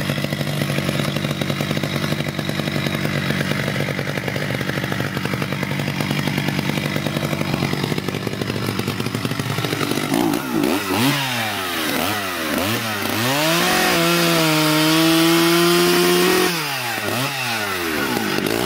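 Stihl two-stroke chainsaw idling steadily for about ten seconds, then revved up and down several times and held at full throttle for about three seconds before dropping back and revving again.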